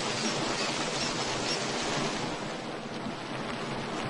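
Steady rain falling, an even hiss that eases slightly after about two seconds.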